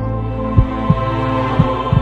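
Dramatic background music: held low chords with a heartbeat-like double thump about once a second.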